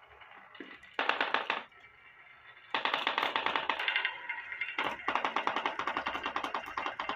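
Dozens of glass marbles rolling down the wavy grooves of a HABA wooden slope marble run, clicking against each other and the wood in a fast rattle. There is a short burst about a second in, then a continuous rattle from about three seconds in.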